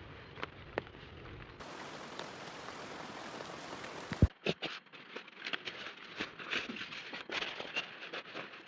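Steady rain, with drops ticking irregularly on a surface close by. There is one sharp, loud tap about four seconds in, after which the close drop ticks come thick and uneven.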